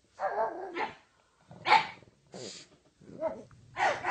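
A dog barking, about five separate barks over four seconds, the first one drawn out longer than the others.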